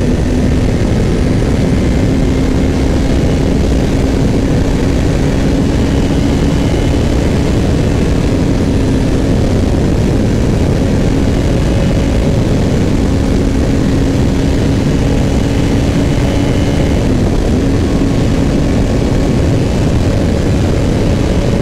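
Sport motorcycle engine running at a steady cruise, its pitch held level and dipping briefly about seventeen seconds in, under heavy wind noise on the microphone.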